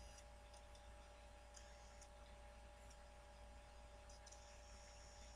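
Near silence: room tone with a faint steady hum and a few faint high clicks.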